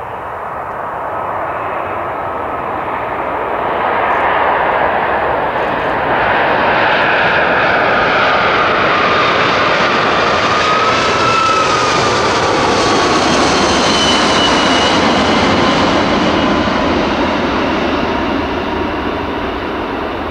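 Boeing 747-400 freighter's four Rolls-Royce RB211 jet engines on final approach with gear down, passing low overhead. The engine noise builds over the first few seconds and stays loud through the middle. Its whining tones fall in pitch as the aircraft goes over, then the noise eases off near the end.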